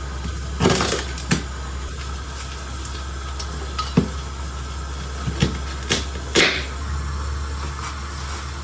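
A handful of scattered sharp knocks and clacks, like objects being handled and set down, over a steady low hum.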